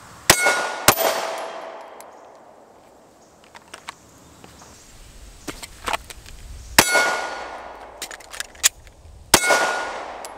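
Pistol shots at steel targets, each hit followed by the steel plate ringing and slowly fading. Two shots come about half a second apart near the start, one comes in the middle and one near the end.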